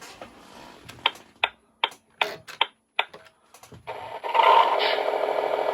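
Sound effects from an RC model's sound module, played through its small speaker: regular ticking, about two or three ticks a second, then a loud buzzing effect that starts about four seconds in.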